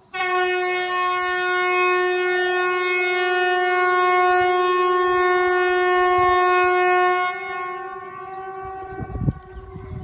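Outdoor warning siren sounding one steady, unwavering tone that starts abruptly, holds for about seven seconds, then drops sharply and lingers faintly. The seven-second blast fits the Swedish outdoor warning system's 'Important public message' signal ('Hesa Fredrik'). A few low thumps come near the end.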